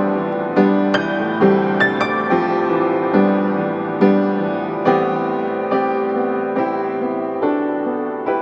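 Background piano music: soft, slow notes and chords struck about once a second.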